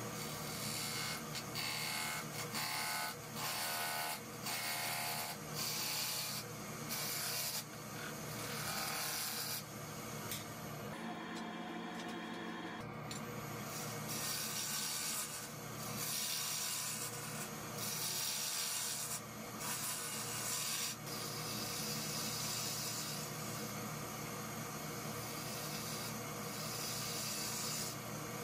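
A hand-held turning tool cutting a wooden blank spinning on a wood lathe: a hissing scrape in repeated passes of a second or two each, over the steady hum of the lathe. The cutting pauses briefly about eleven seconds in.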